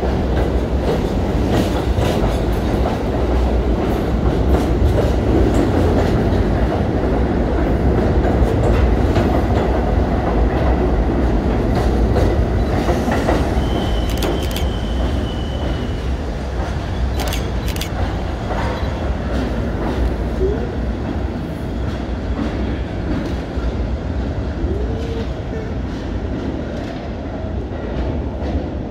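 Budd R32 subway train running through the station: a steady rumble of wheels on rails with clicking over the rail joints. A brief high whine comes about halfway through, and the sound fades a little as the train pulls away into the tunnel.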